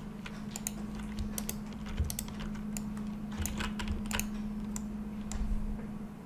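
Computer keyboard keys and mouse buttons clicking irregularly as shortcuts are pressed, over a steady low hum.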